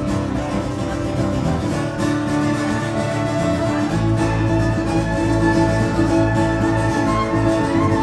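A small live band playing together: fiddle bowing over strummed acoustic and electric guitars, at a steady driving level.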